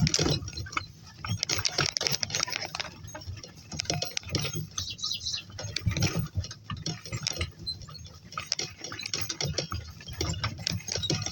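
Irregular rustling and clicking of walking through grass and vegetation, with uneven crackles and soft thuds throughout.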